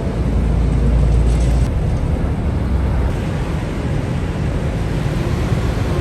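River ferry's engine running, a steady deep rumble under a haze of wind and water noise; the deepest part of the rumble eases a little under two seconds in.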